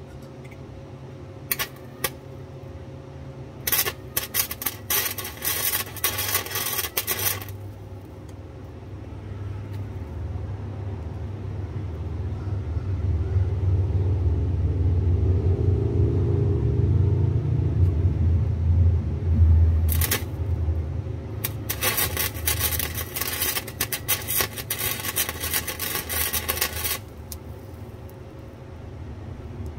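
Wire-feed (MIG) welder arc crackling on steel in two runs of a few seconds each, each started by a couple of short snaps. Between the runs a low rumble builds and fades.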